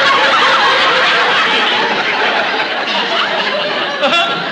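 Studio audience laughing: one long wave of laughter that slowly dies down.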